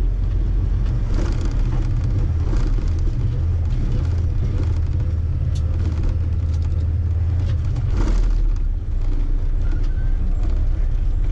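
Freightliner Columbia semi truck's diesel engine running steadily while driving, with occasional knocks and rattles from the cab.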